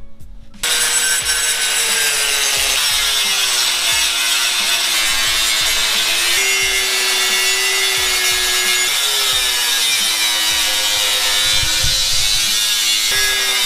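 Angle grinder grinding into a metal bar. It starts about half a second in and runs steadily with a harsh hiss, its motor pitch sagging and recovering several times as it is pressed into the work.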